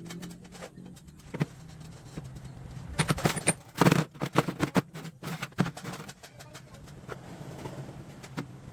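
Metal parts knocking and clinking, thickest in a run of sharp strikes from about three to six seconds in, over a steady low hum.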